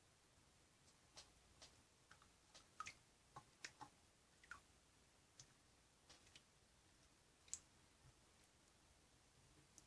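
Near silence with faint, irregular small clicks and ticks, about fifteen scattered through, the sharpest one about two-thirds of the way in.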